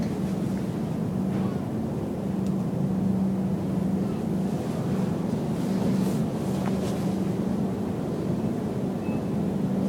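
Shopping cart rolling along a store floor: a steady rumble with a low, constant hum underneath.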